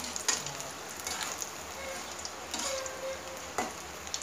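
Spinach-and-gram-flour pakodas deep-frying in hot oil in a metal kadai: a steady sizzle, with a few sharp clicks as a slotted spoon turns them against the pan.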